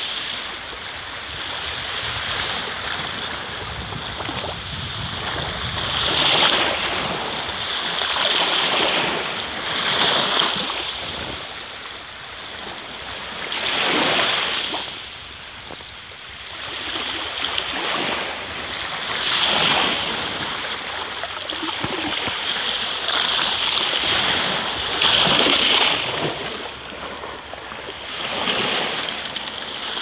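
Small sea waves breaking and washing up over a beach of crushed shells: a hissing wash that swells and dies away every few seconds.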